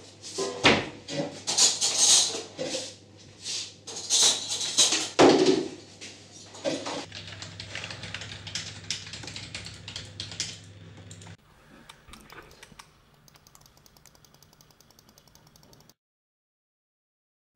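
Household handling noises: irregular knocks, clicks and rustles of objects moved and set down, over a low steady hum that stops about eleven seconds in. Faint rapid ticking follows, then silence near the end.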